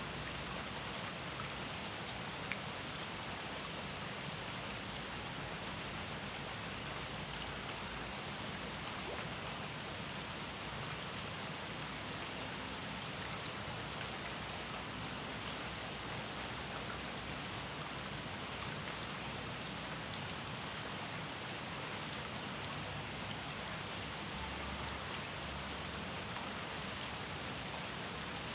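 Steady rain falling onto a pond, an even hiss with a few sharper single drop ticks, at about 2.5 and 22 seconds in.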